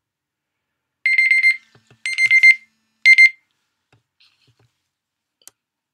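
Electronic timer going off: three quick runs of rapid, high-pitched beeps, each about half a second long and about a second apart.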